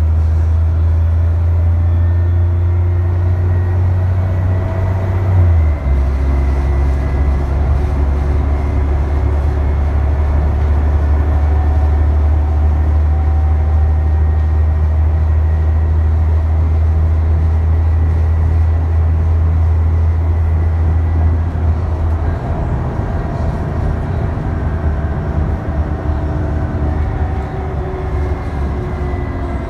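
ADL Trident double-decker bus's diesel engine and drivetrain under way, heard from the upper deck: a loud, deep drone that steps down in pitch about six seconds in, as at a gear change, and eases off later on, with faint higher whining tones above it.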